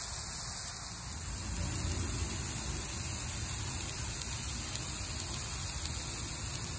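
Chicken pieces sizzling on the hot grate of a BBQ Dragon Zephyr charcoal grill, a steady hiss like light rain, with a low rumble underneath.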